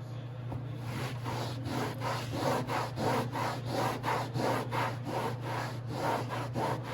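Rhythmic hand scrubbing on a textured fiberglass non-skid boat deck, about three strokes a second, working hardened spray adhesive loose with Zippo lighter fluid.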